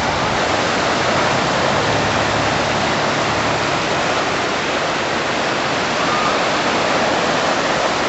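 Ocean surf breaking and washing over the shallows: a loud, steady rush of water.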